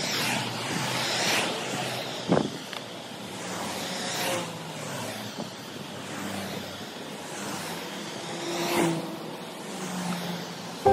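Cars passing one after another on the road alongside, their tyre and engine noise swelling and fading about three times, with a single sharp knock about two seconds in.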